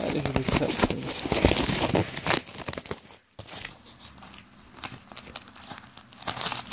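Cardboard shipping box being torn open: dense tearing and crackling of cardboard for about two and a half seconds, then quieter rustling and scraping as the flaps are handled.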